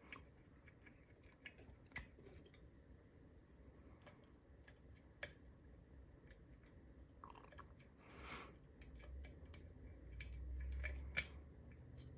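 Faint ticks, clicks and light scraping of a lock pick probing the pin stacks of a cruciform (cross-key) padlock held under tension, with a few sharper clicks scattered through and a short scrape about eight seconds in.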